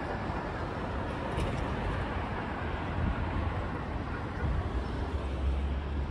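Steady city road traffic: cars and a bus driving through an intersection. A deeper rumble swells about two-thirds of the way through.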